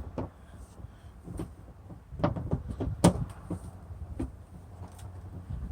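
Light clicks and knocks of plastic door-handle parts being handled and fitted against a car door, with a quick cluster of sharper taps about two to three seconds in.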